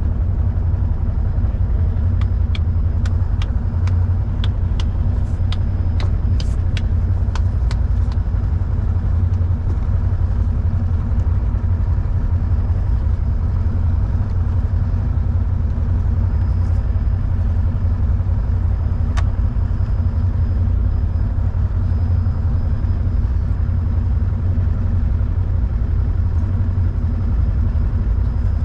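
Side-by-side UTV engine idling steadily while the vehicle stands still, a constant low hum. A quick run of light clicks and ticks comes over the first several seconds, with one more about two-thirds of the way in.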